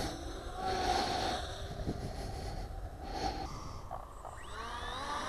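Wind rumbling on the microphone under a faint whine from a homemade quadcopter's motors; about four seconds in, the motors spin up and their whine rises in pitch.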